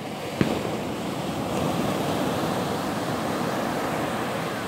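Small ocean waves breaking on a sandy shore, their surf noise swelling through the middle and easing near the end. A single sharp click comes about half a second in.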